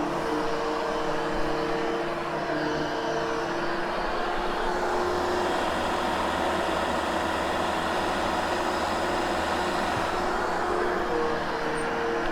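Hoover Hush Tone upright vacuum cleaner running steadily on carpet, its motor tone shifting slightly as it works.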